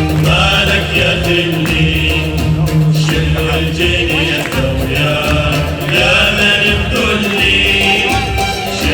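Live Middle Eastern music with a voice singing over a steady low accompaniment and frequent percussion strokes.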